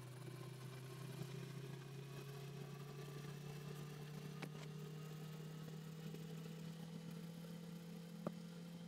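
Steady low motor-like hum whose pitch slowly rises, with a couple of faint clicks.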